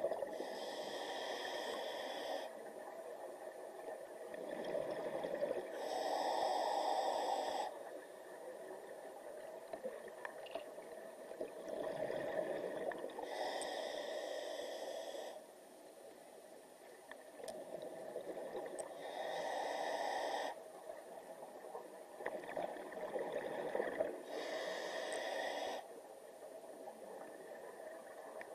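Scuba diver breathing through a regulator underwater: a slow, regular cycle of regulator hiss and exhaled bubbles, with a louder spell about every five to six seconds, five times in all.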